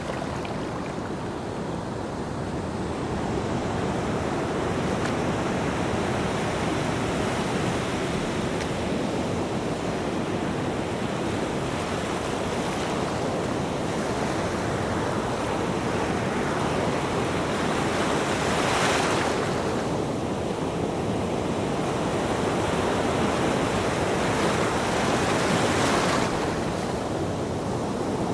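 Ocean waves washing onto a beach: a steady rushing surf, with two louder breakers, one about two-thirds of the way in and one near the end.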